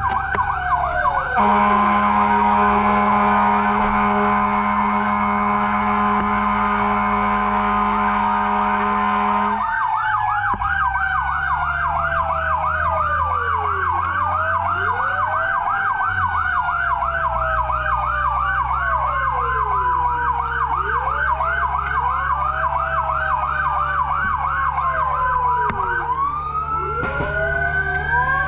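Fire engine sirens on a call: a fast yelp at about three to four sweeps a second, with several slower wailing sirens sweeping over it. A long, steady horn blast sounds from about a second in and stops suddenly near the ten-second mark. A truck engine runs low underneath.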